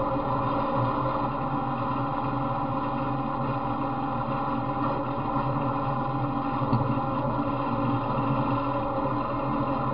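Off-road riding mower's engine running steadily at an even speed as the mower drives through brush. The engine is one the owner says has a knock, now running on straight 40-weight oil with STP oil treatment.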